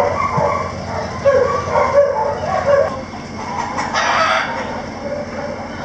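Chickens clucking in a string of short calls, then a rooster crowing once about four seconds in.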